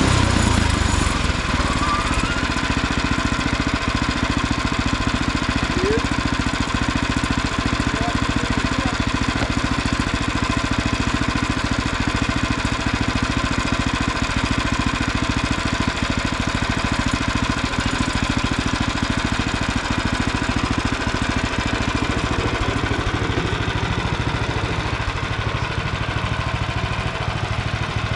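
Frontier OS23 bandsaw mill's small engine running steadily at a fairly even pitch.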